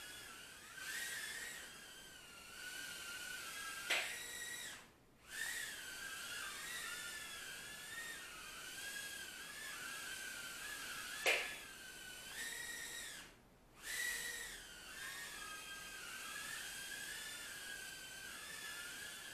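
Furibee F36 micro quadcopter's tiny motors and propellers whining in flight, the high pitch wavering up and down as the throttle changes. Two sharp clicks, about 4 and 11 seconds in, are each followed a moment later by a brief dip in the whine.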